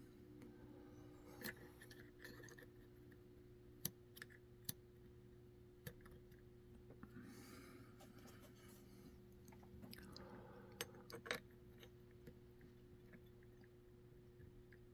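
Near silence over a steady low hum, broken by scattered faint small metallic clicks and a couple of soft rustles: tiny lock pins, springs and tools being handled while the cylinder of a Master Lock deadbolt is repinned.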